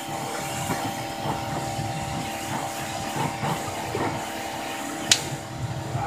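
Pressure washer running with a steady hum, its spray hissing against the metal side of a truck's trailer. A single sharp click about five seconds in.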